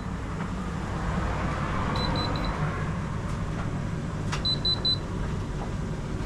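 Electronic beeper on an AEG/Electrolux tumble dryer giving two quick runs of about four short, high beeps, over a steady low hum. The appliance is sounding its error alert for the E50 fault. A sharp click comes just before the second run.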